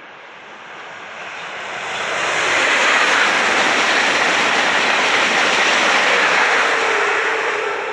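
Renfe Avlo Series 112 high-speed electric train passing at speed: a loud rush that builds over about two seconds as it approaches, holds for about four seconds as the train goes by, then begins to fade near the end.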